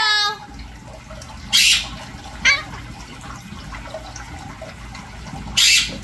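Pet parakeets calling: a falling call at the start, two loud harsh squawks about a second and a half in and near the end, and a short sharp falling chirp between them. A steady trickle of running water underneath, likely the birds' fountain.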